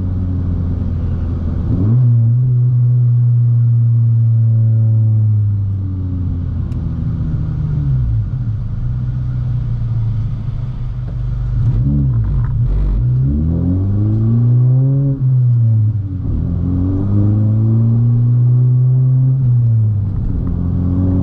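10th-generation Honda Civic Si's turbocharged four-cylinder engine pulling through the gears: the revs climb and fall several times as the car accelerates and shifts, with a brief dip and recovery about twelve seconds in.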